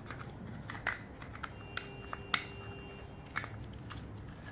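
Scattered small clicks and taps of a PoE-to-USB-C adapter and its cable plugs being handled and fitted into place, about six in all, the sharpest about halfway through.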